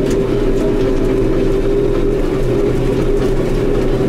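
Tractor engine running at a steady speed, heard from inside the closed cab, with a constant steady whine over the engine drone.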